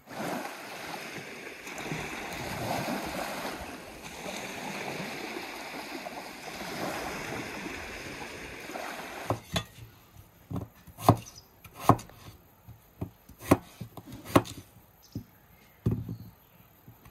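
Small waves washing onto a sandy shore, a steady rush. About nine seconds in it gives way to a knife chopping potatoes on a wooden cutting board: a dozen or so sharp, irregular knocks.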